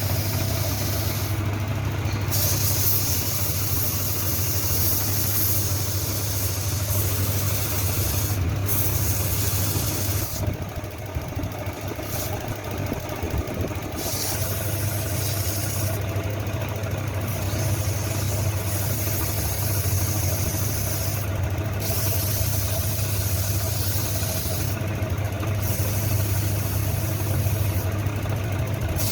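A machine running steadily, with a constant low hum under a hiss of noise.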